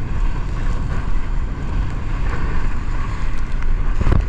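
Heavy wind buffeting on the microphone and water rushing under an inner tube towed at speed through a boat's wake, with the towing motorboat's engine running under it. A louder burst of splashing hits about four seconds in.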